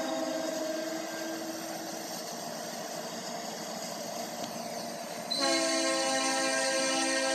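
CN SD60 locomotive's air horn blowing as the train approaches: a blast of several tones together that fades about a second in, leaving a steady rumbling noise, then a second blast that starts sharply about five seconds in and holds.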